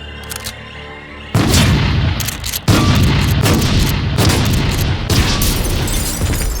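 Action sound effects over dark music. A quiet held drone gives way about a second in to a sudden heavy boom, then a second blast and a dense run of loud booms and impacts that continue to the end.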